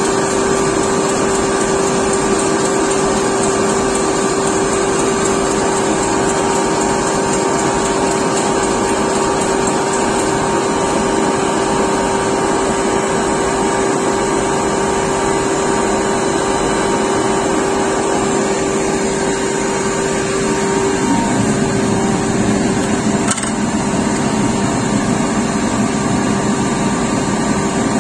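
Fume extraction fan of a laser cutter running with a steady rushing hum while the laser engraves and cuts plywood. A held tone in the hum stops about three quarters of the way through, and a light click follows shortly after.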